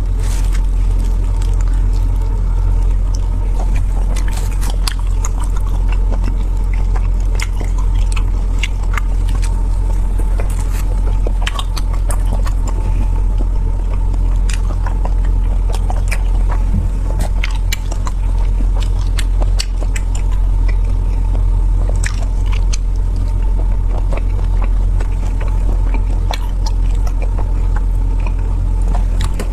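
Person eating, with scattered short crunches and clicks of biting and chewing, over a loud, steady low rumble.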